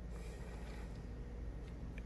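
Quiet room tone: a steady low hum under faint hiss, with a faint tick or two near the end.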